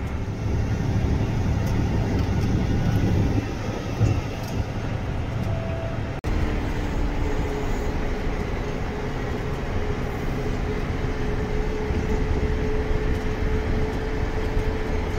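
In-cab sound of a John Deere 9620R tractor pulling a grain cart across a field at about 10 mph, its engine running steadily near 1550 rpm. The sound cuts out for an instant about six seconds in, and after that a steady whine sits over the engine.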